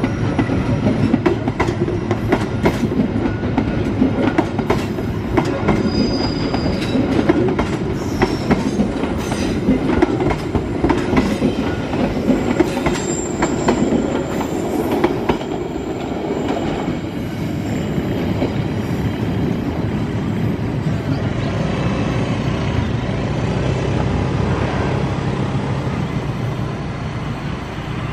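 Passenger train coaches rolling past close by, their wheels clicking rapidly over the rail joints, with a few brief high wheel squeals. About halfway through the clicking thins out into a steadier rolling rumble.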